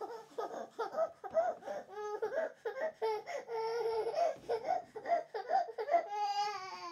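An 8-month-old baby sobbing in short, choppy catches of voice, several a second, then breaking into a longer held wail near the end.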